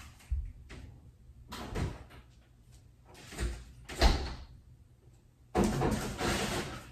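Kitchen doors being opened and shut and things handled: a few short knocking, rustling sounds, a sharper knock about four seconds in, and a longer noisy stretch near the end.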